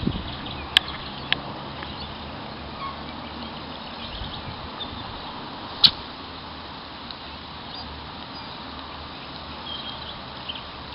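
Steady wind noise on the microphone with a few sharp clicks, the loudest about six seconds in, and faint high chirps near the end.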